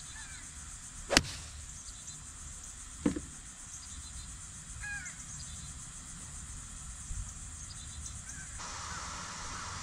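A golf club strikes a ball off the tee with one sharp crack about a second in, followed by a duller knock about two seconds later.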